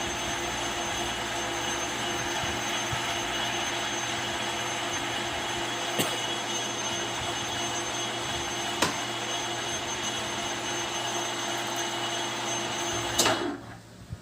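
Lathe machine running with a steady mechanical whir and hum, two sharp clicks partway through, then a louder click and the sound stopping abruptly near the end.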